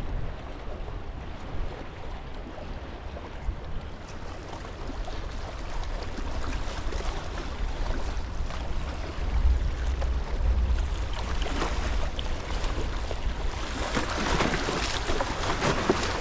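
Small wind-driven waves lapping and splashing against shoreline rocks, with wind buffeting the microphone as a low rumble. The splashing grows louder and busier near the end.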